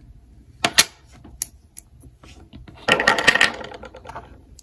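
Small plastic and metal parts of a universal flip-key shell and key blade being handled and set down on a desk: a couple of sharp clicks in the first second and a half, then a quick rattle of small clicks about three seconds in.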